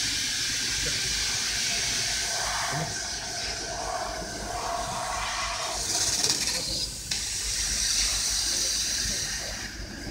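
750 W fiber laser cutting machine cutting thin stainless steel sheet: a steady hiss of the assist gas jet from the cutting head as the beam cuts, breaking off briefly about seven seconds in.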